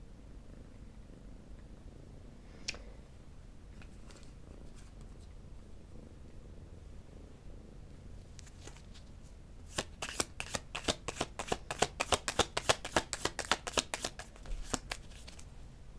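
A deck of oracle cards being shuffled by hand: a few soft card clicks, then from about ten seconds in a quick run of card snaps for about five seconds.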